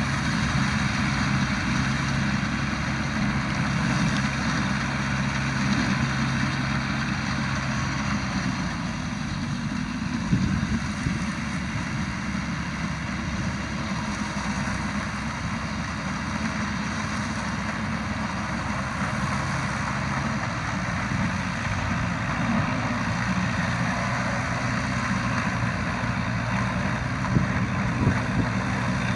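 Diesel farm tractor engine running steadily under load while its rear rotary tiller churns the soil; the engine note shifts about nine seconds in.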